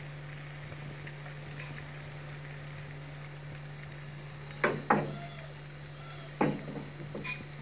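A steady low hum, then a few sharp clicks and knocks in the second half as a gas cooker's burner control knob is gripped and turned.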